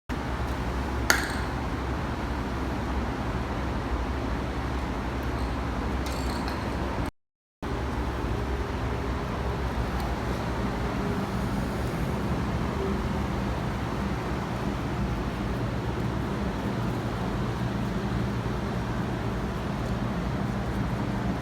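Steady low background rumble, like distant road traffic, with a single sharp click about a second in; the sound cuts out briefly about seven seconds in.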